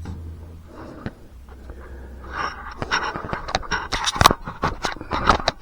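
Scraping with a run of sharp clicks and knocks from something being handled, starting about two seconds in; the loudest knock comes about four seconds in.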